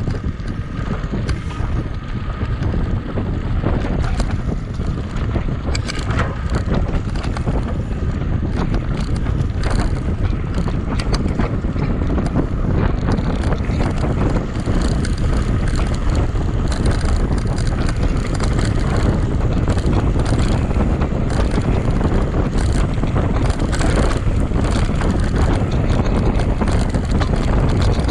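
Mountain bike ridden fast over a trail: a steady low rumble of wind buffeting the microphone, with frequent short rattles and clicks from the bike and tyres on rough ground.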